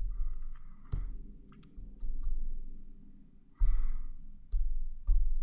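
A few separate keystrokes on a computer keyboard, each a sharp click with a dull thump, spaced about half a second to a second apart.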